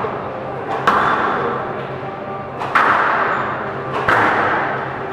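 Squash ball smacked back and forth in a rally on a glass-walled court: three sharp hits, each followed by a ringing hall echo that dies away.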